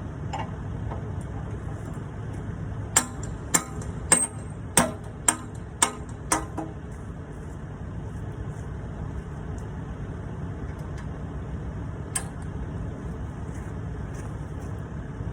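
A big hammer striking metal on a Bobcat excavator's bucket hookup: seven ringing blows a little under two a second, starting about three seconds in, then one more strike later on. A low steady engine hum runs underneath.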